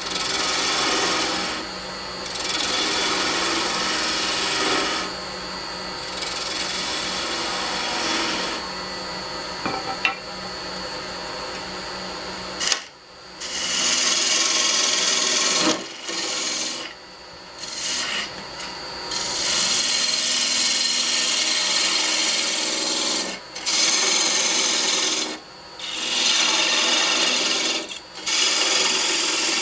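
A turning tool cutting a spalted maple spindle on a running wood lathe, a steady rasping scrape of steel on spinning wood. The cut is broken by several short pauses in the second half.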